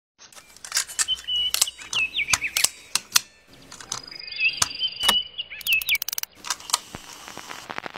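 Irregular sharp clicks, like typing, with two bouts of short high chirps among them.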